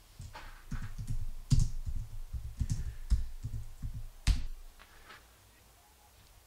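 Typing on a computer keyboard: a run of irregular keystrokes that stops about a second before the end.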